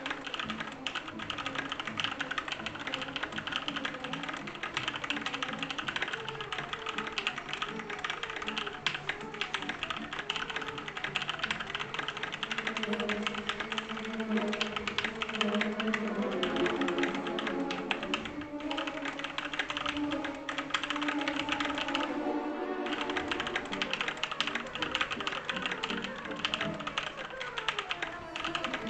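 Fast, continuous typing on a computer keyboard, a dense stream of key clicks, over background music.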